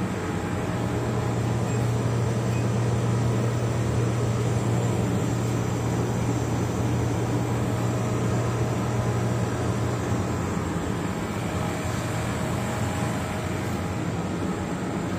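Robot welding machine running under test: a steady mechanical hum and hiss, with a low drone that starts about a second in and eases off around ten seconds in.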